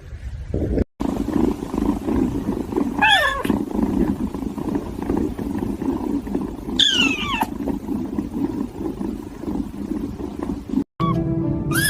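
A cat meowing twice, about four seconds apart, each meow sliding down in pitch, over a steady low rumble.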